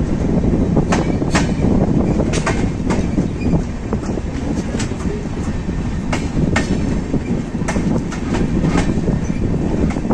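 Express passenger train running on the track, a steady rumble with sharp clickety-clack clicks of the wheels over rail joints, often in pairs about half a second apart.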